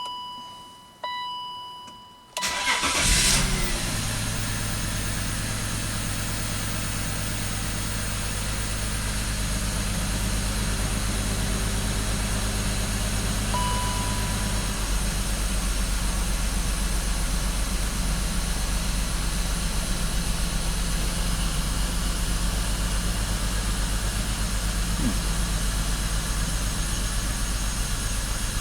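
Two short electronic chime tones, then a BMW X5 engine cranks and catches about two and a half seconds in and settles into a steady idle.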